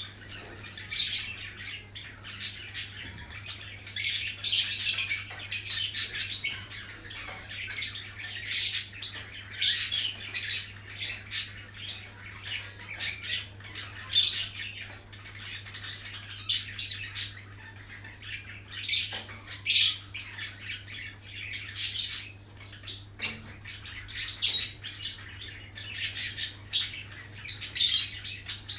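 Birds squawking and chirping in short, irregular calls, over a steady low hum.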